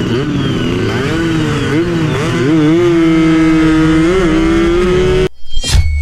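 Two-stroke motorcycle engine revving hard under way, its pitch dipping and climbing several times with the throttle and gear changes, then holding high. It cuts off suddenly about five seconds in, followed by a brief whoosh.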